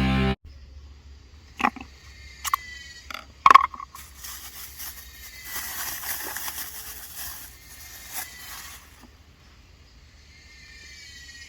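Forest ambience after music cuts off: birds calling with thin, high, slightly falling notes, a few sharp knocks early on, and a soft rustling hiss in the middle.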